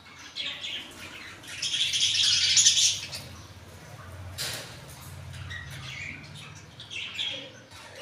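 A cage of budgerigars and Indian ringneck parakeets chirping and squawking, with one loud, harsh burst of calling lasting about a second and a half, starting about one and a half seconds in.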